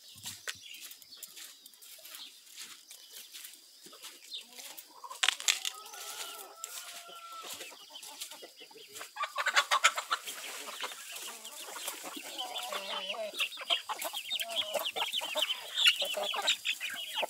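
A flock of domestic chickens clucking, with one long drawn-out call about five seconds in; the clucking grows louder and busier over the last several seconds.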